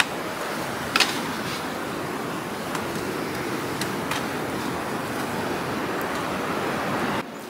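Steady rushing wind noise on the microphone, with a few sharp clicks, cutting off abruptly near the end.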